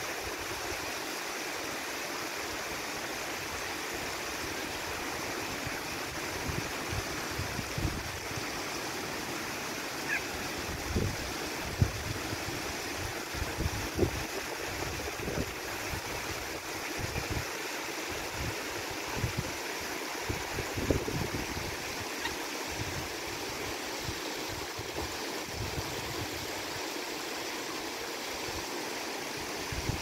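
A shallow river running over a stony riffle: a steady rushing hiss of water. Irregular low gusts of wind buffet the microphone now and then.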